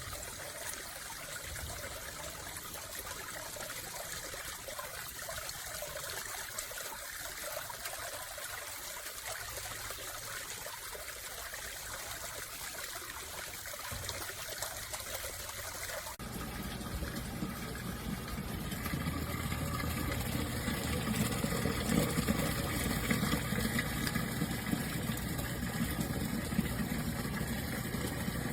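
Water trickling and splashing from the weak outflow of a small submersible pond pump, over a steady low hum. About 16 seconds in the sound changes abruptly and becomes fuller and louder.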